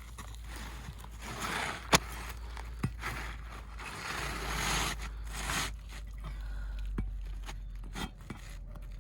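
Asphalt shingle being scraped and worked loose from the roof: several gritty scraping strokes, with a few sharp clicks in between.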